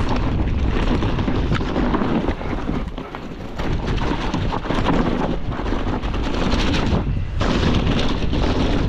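Mountain bike riding fast down a dirt forest trail: wind buffeting the handlebar-view camera's microphone over the tyres rolling on dirt, with a constant rattle and knocking from the bike over bumps.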